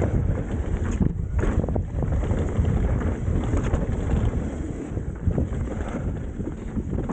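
Wind buffeting the microphone of a mountain bike descending a dirt trail at speed, mixed with the rumble and rattle of the bike over rough ground.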